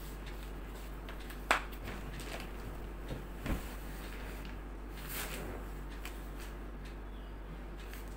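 Quiet room tone with a steady low hum, broken by a sharp click about a second and a half in and a couple of softer knocks later on.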